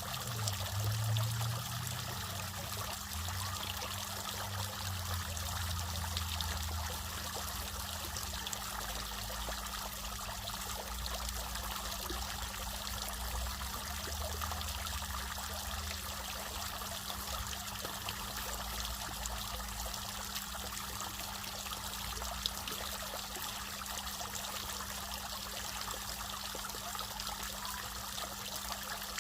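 Water splashing and trickling steadily, with a steady low hum underneath.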